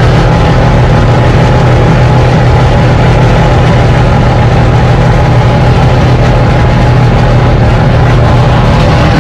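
Four-rotor 26B rotary engine in a Holden FJ running steadily at low speed, an even note that holds without revving.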